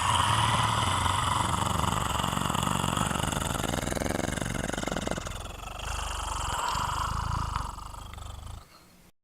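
Zombie growl sound effect: one long, rough, rattling growl that dips in loudness about halfway through, picks up again and stops shortly before the end.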